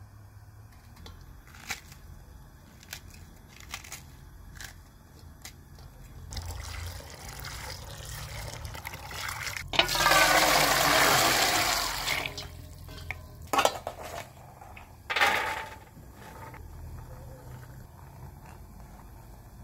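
Water from a hose running into a steel bowl of pomegranate arils while hands swish them about, loudest about halfway through. Before it come a few small crisp cracks of a pomegranate being broken apart and seeded by hand, and after it a couple of sharp knocks.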